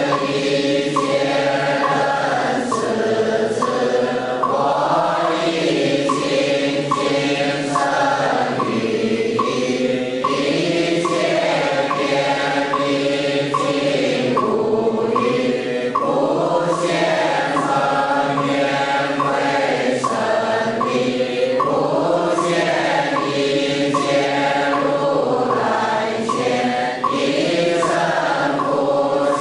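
A group chanting a Buddhist text in unison, kept in time by a wooden fish (muyu) knocked at a steady beat of about two strokes a second.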